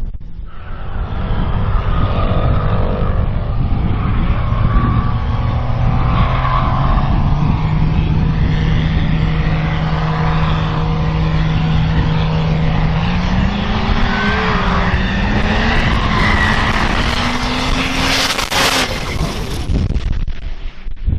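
Turbo-diesel drag racing truck engine running hard under load. Its pitch holds steady for several seconds, then climbs over the last few seconds.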